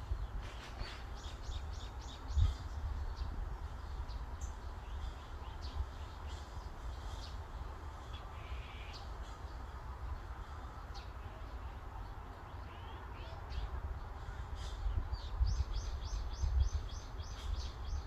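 Forest birds calling and chirping over a low rumble of breeze on the microphone. A rapid string of repeated notes comes about a second in and again near the end, and a short harsh call, possibly a caw, comes near the middle.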